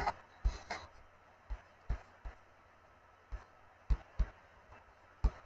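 Scattered clicks and light knocks, about ten at irregular spacing, from a computer mouse and keyboard being worked at a desk.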